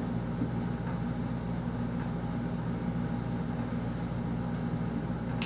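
Steady low mechanical hum with a few faint light clicks over it.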